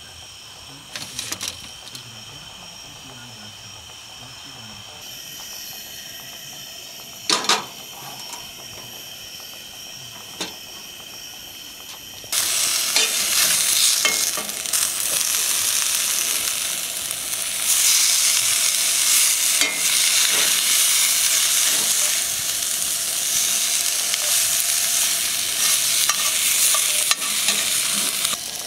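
Leftover bluegill sizzling in a cast-iron skillet. For the first twelve seconds there is only a quieter steady hiss with a few clicks, then the sizzling comes in loud and suddenly and keeps on to the end.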